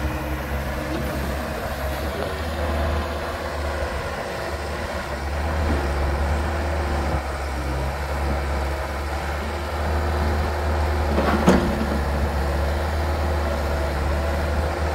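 2005 Bobcat 442 mini excavator's diesel engine running steadily under load while the boom and bucket are worked hydraulically. There is one sharp clank about eleven and a half seconds in.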